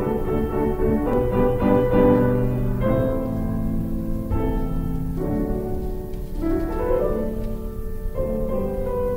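Instrumental intro music led by piano, with held chords that change every second or two and a rising phrase about two-thirds of the way through.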